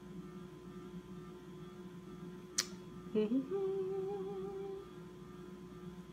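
A woman's short closed-mouth hum, rising and then held on one note for about a second and a half, over a steady electrical mains hum. A single click comes just before it.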